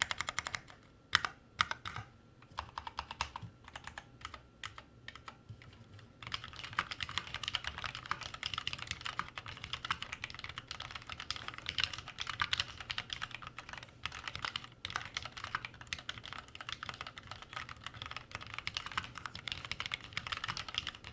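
Typing on an Achon FX mechanical keyboard with Kailh BOX Black linear switches: scattered keystrokes and short bursts at first, then fast continuous typing from about six seconds in.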